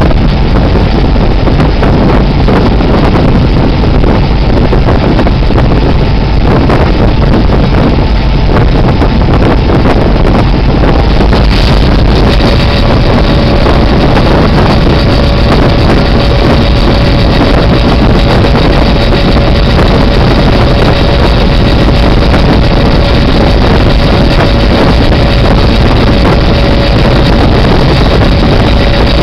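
Diesel locomotive running as it rolls along the track: a steady engine drone with wheel and rail noise and wind buffeting the microphone. A steady whine joins in about twelve seconds in.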